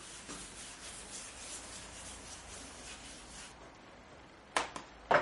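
A French-polishing rubber, a cotton pad over wadding, rubbed in circles over a wooden tabletop with a steady rubbing sound that stops after about three and a half seconds. Near the end come two sharp knocks, the second the loudest.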